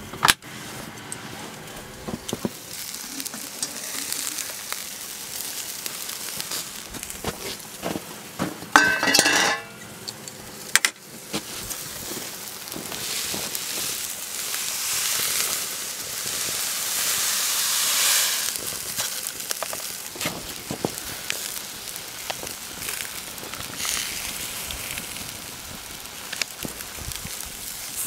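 Drawer and gear handling clicks, with a loud scraping clatter about a third of the way in. Then a wood fire crackles and a steel pan sizzles on the grate above it, its hiss swelling to its loudest a little past halfway before easing off.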